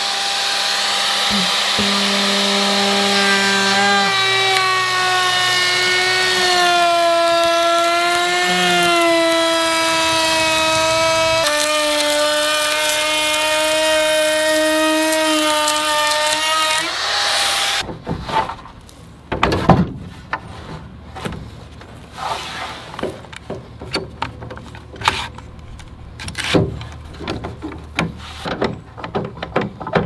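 Handheld electric router with a rabbet bit cutting a shiplap rabbet along the edge of a pine board: a high motor whine whose pitch wavers and drops as the bit cuts, shutting off about 18 seconds in. Afterwards, scattered knocks and clatter from handling the boards.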